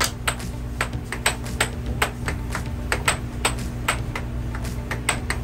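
Air hockey rally: the plastic puck is struck by mallets and cracks off the table rails in quick sharp clicks, about four a second, over the steady hum of the table's air blower.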